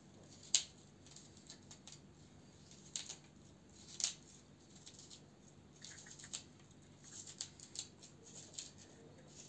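Knife blade piercing holes through the base of a hollowed-out black radish: scattered faint scrapes and a few sharp clicks as the blade works into the firm root.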